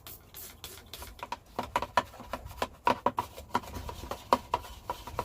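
Hand cleaning work inside a truck cab: an irregular run of short, sharp clicks and rubs, several a second, getting louder after about a second.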